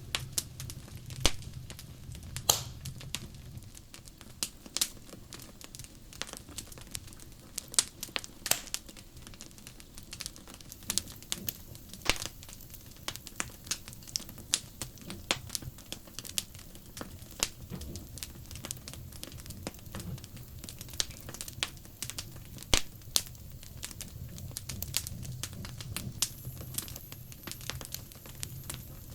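Wood fire crackling, with irregular sharp pops and snaps, several of them louder than the rest, over a low steady burning noise.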